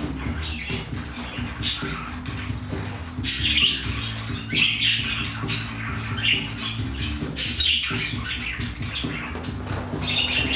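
Budgerigars calling in short, high, irregular bursts over steady background music.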